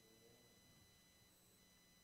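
Near silence: room tone with a faint, distant voice trailing off in the first half second, off-microphone, and a faint steady high electrical whine.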